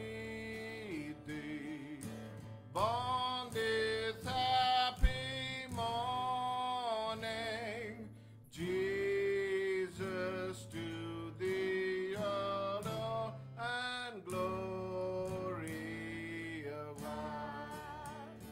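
A child singing a Christmas carol into a microphone, in held, sustained notes, accompanied by a strummed acoustic guitar.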